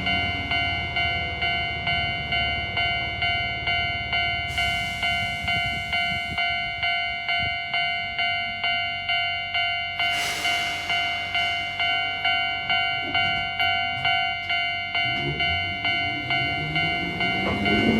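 Japanese railway level-crossing alarm of the old standard type, ringing its electronic bell tone evenly at about two strokes a second. A hiss comes about ten seconds in, and near the end an electric train's motor whine rises steadily in pitch as the train gathers speed.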